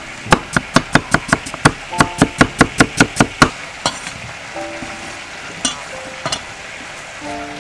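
A knife chopping quickly on a wooden cutting board, about six sharp strokes a second for some three seconds, then stopping; a few lone knocks follow.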